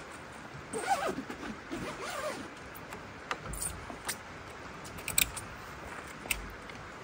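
Zipper on a rooftop tent's fabric being drawn, with several sharp clicks in the second half.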